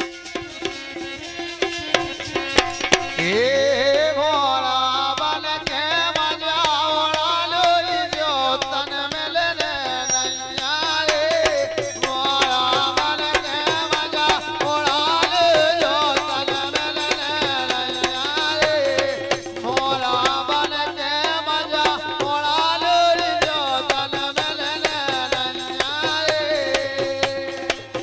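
Live Bundelkhandi Rai folk music: a man singing over a harmonium drone, with quick dholak drum beats and manjira cymbals. The singing comes in about three seconds in.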